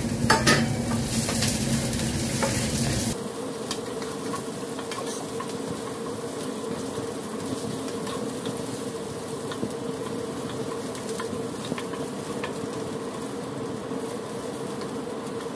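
Carrot slices and garlic cloves sizzling in hot oil in a nonstick frying pan, stirred with a wooden spatula, with a few clattering knocks at the very start as the carrots land in the pan. The sizzle turns quieter and steadier about three seconds in.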